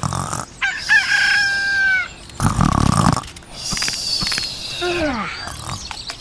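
A rooster crows once, a held call about a second in, followed by other animal noises: a loud low burst and a short falling cry.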